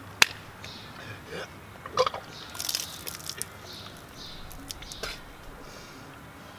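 Scattered short throat and breath noises from a person who has just vomited: brief hiccup-like catches among quiet stretches, with a couple of sharp clicks.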